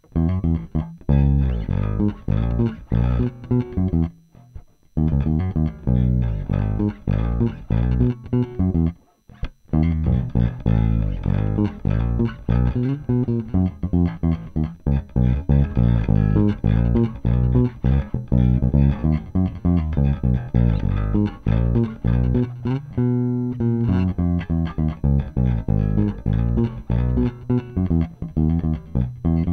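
Momose Jazz Bass played unaccompanied: a busy line of plucked notes, broken by two short pauses in the first ten seconds, with a ringing chord about two-thirds of the way through. The signal runs through one of the volume pots being compared for their resistance.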